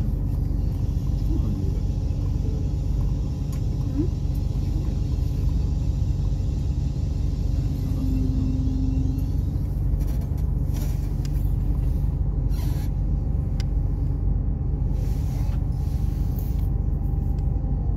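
Steady low rumble of a Bombardier AGC railcar heard from inside the passenger saloon as it slows to a stop at a station platform, with a brief tone about halfway through and a few sharp clicks in the second half.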